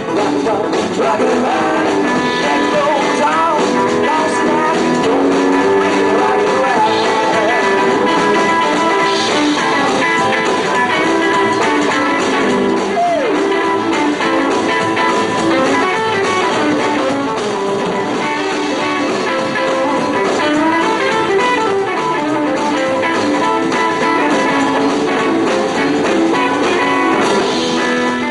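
Live rock and roll band playing an instrumental break, electric guitar out front over the rhythm section, with a single falling pitch slide a little under halfway through.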